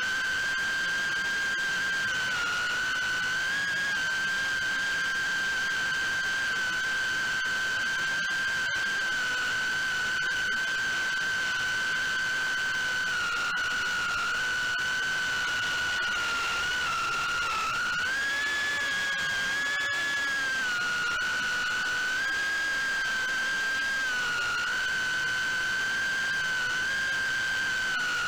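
FPV quadcopter's motors and propellers whining at a high, fairly steady pitch that wavers with throttle changes and rises briefly about two-thirds of the way through, over a steady hiss.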